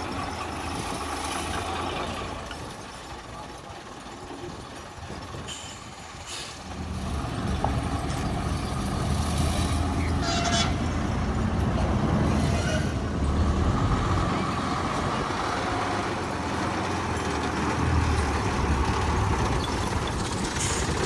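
Truck diesel engine running steadily, quieter at first and louder from about seven seconds in, with a few short hisses.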